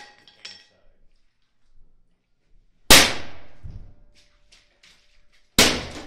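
A hammer striking a top-loading washing machine's sheet-metal cabinet twice, about three seconds apart. Each strike is a loud bang that rings out for about a second, followed by a few small rattling ticks.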